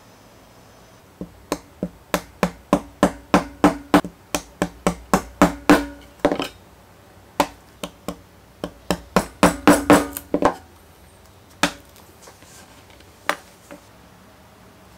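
A maul striking a steel stitching chisel through bridle leather into a punching board: two runs of quick, steady blows, about three a second, then two single strikes near the end.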